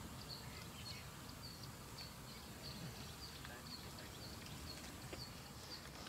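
Faint bird call, a short high note repeated evenly about twice a second, over quiet bush ambience.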